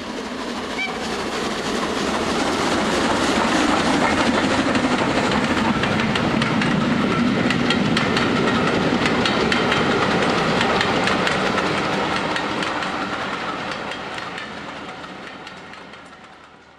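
A train running past with a rapid clickety-clack of wheels over rail joints, swelling up over the first few seconds and fading away near the end.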